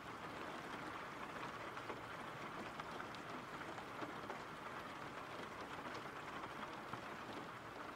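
Steady, soft rain falling: an even hiss with a light patter of drops.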